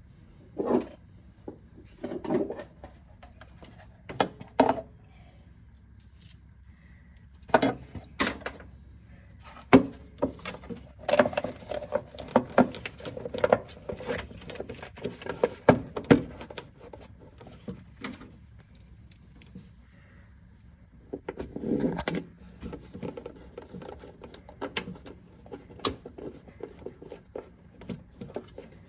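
Irregular clinks, knocks and rattles of metal tools and parts being handled while a golf cart is put back together, thickest in two stretches in the middle and later on.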